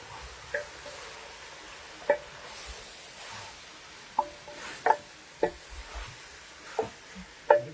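A metal spoon knocking and scraping against a cooking pot as chicken curry is stirred, about seven irregular knocks with a short metallic ring, over a faint sizzle from the pot.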